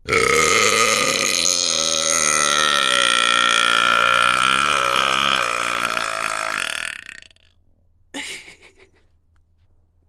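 A woman's single long, loud burp lasting about seven seconds, its pitch wavering slightly before it fades out. A short, faint second sound follows about a second later.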